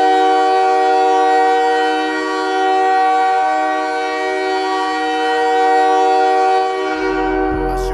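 Ice hockey goal horn blowing a loud, steady chord of several tones, held without a break for about seven seconds. Hip-hop music with a heavy bass beat comes in near the end.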